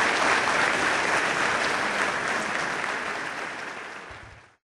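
Audience applause: a crowd clapping steadily, dying away over the last second or so and then cutting off abruptly.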